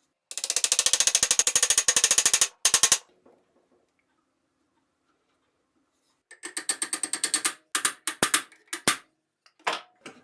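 Ratchet wrench clicking in two quick runs of about ten clicks a second, one lasting about two seconds and the other about a second, followed by a few slower single clicks near the end.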